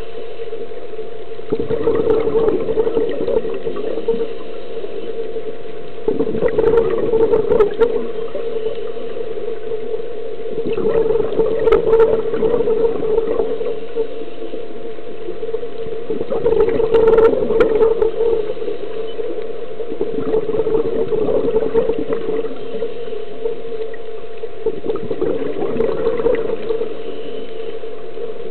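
Scuba regulator breathing underwater: about every five seconds an exhalation of bubbles gurgles out, six times, over a steady low hum.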